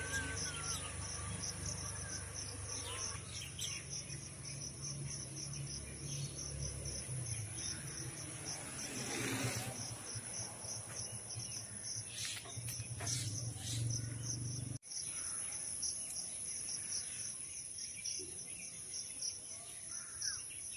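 Insects chirping in a steady, regular pulsing trill over a continuous high-pitched buzz, with a low rumble underneath for the first two thirds.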